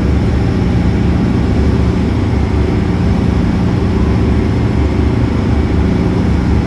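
Steady low engine drone, like a vehicle running, with no change in pitch or level.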